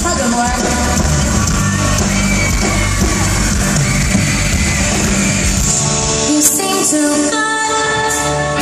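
Live pop band playing with singing: electric guitars, keyboards and drums. About six seconds in, the bass and drums drop out, leaving held keyboard and guitar notes.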